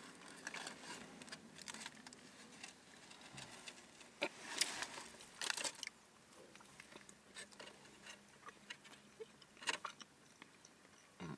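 Quiet eating: two people biting into and chewing soft bread rolls, with a few brief crinkles and clicks of aluminium foil wrapping being handled.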